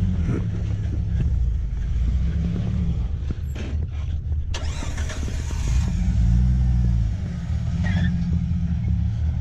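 Jeep Wrangler TJ engine running at low revs as it crawls over boulders. The revs rise and fall once, about six seconds in.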